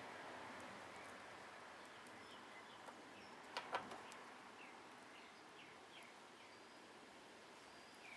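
Faint steady hiss with a bird chirping outside in short, repeated falling notes, and two sharp clicks close together about three and a half seconds in.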